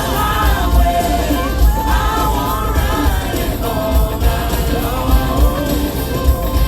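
Rock-pop song with a lead vocal singing over a full band with a strong bass line.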